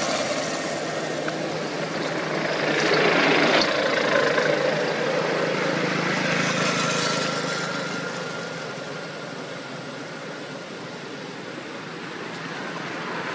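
A motor vehicle passing on the road: its engine and tyre noise swells to its loudest about three to four seconds in, then fades away over the following several seconds.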